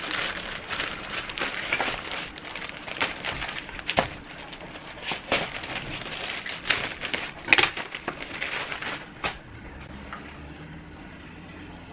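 Black plastic mailer bag crinkling and rustling as it is handled and cut open with scissors, with sharp crackles throughout. The rustling stops about nine seconds in.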